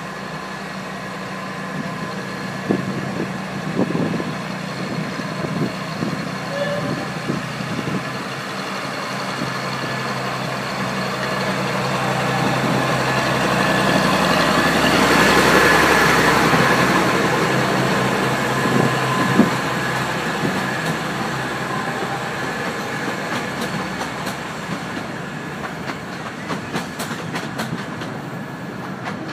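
Small diesel locomotive of a 15-inch gauge miniature railway running steadily as it hauls coaches past, loudest about halfway through as it goes by, with a few sharp clunks. Near the end the coaches' wheels click over the rail joints.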